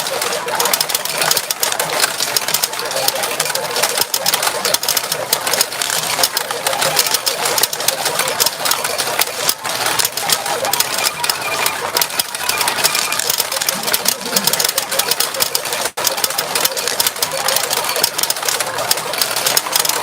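Retro pachinko machine in play: a continuous, dense rattle of steel balls being fired and clattering through the playfield and tray.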